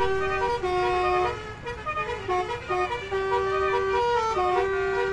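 Bus basuri melodic air horn playing a tune: a run of short notes stepping up and down, then one long held note from about three seconds in.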